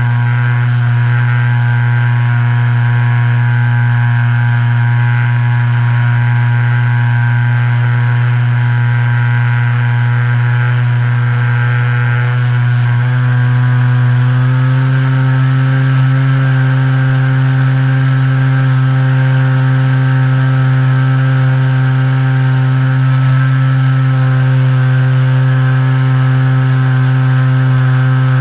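Electric motor and propeller of a Reely Phönix RC plane running steadily in flight, heard from the camera mounted in its cockpit. The hum steps up slightly in pitch about halfway through and holds there.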